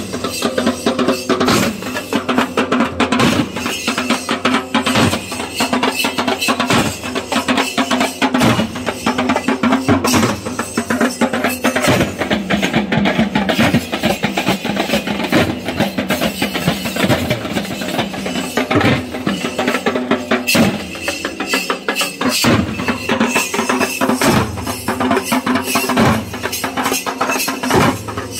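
Dhol drums beaten in a fast, dense, continuous rhythm, the drumming of a Muharram procession, with a steady pitched tone sounding under the strokes that drops out briefly a couple of times.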